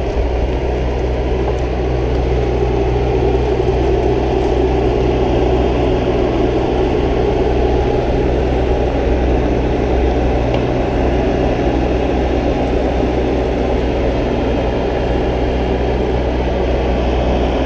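Diesel engine of a Bobcat compact machine running at a steady speed, a constant low hum with no revving.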